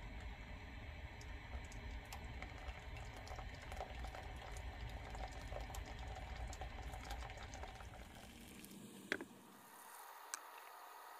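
Hot water poured from a stainless Coleman kettle into a paper drip coffee bag in a mug, a steady trickling splash. About nine seconds in, the low rumble under it drops away and a sharp click follows, with a second click a little over a second later.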